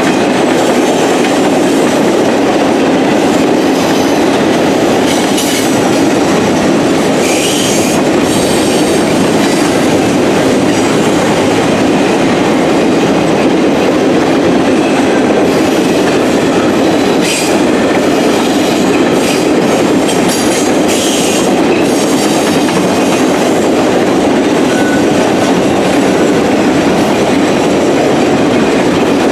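RoadRailer freight train rolling past at track speed: a steady, loud rumble of wheels on rail with clickety-clack, broken a few times by brief high-pitched wheel squeals.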